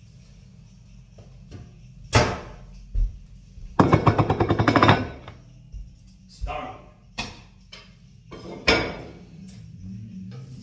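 Kitchenware clattering: a couple of knocks, then a plate rattling fast for about a second as it settles on the counter, followed by a few lighter knocks of the pan and utensils.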